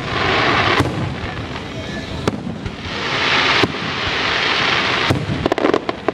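Aerial fireworks going off: several sharp bangs a second or two apart, with long hissing crackle between them and a quick run of pops near the end.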